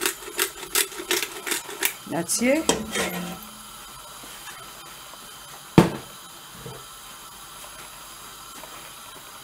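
Rhythmic sharp tapping in the kitchen, about three taps a second for the first two seconds, then a single sharp knock of pot or utensil about six seconds in.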